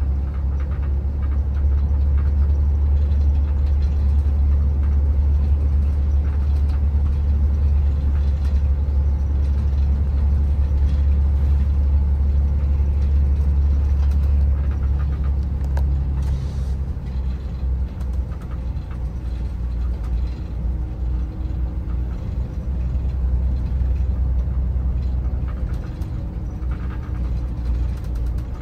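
Shuttle bus engine and road noise heard from inside the cabin: a steady low rumble that eases and becomes less even about halfway through.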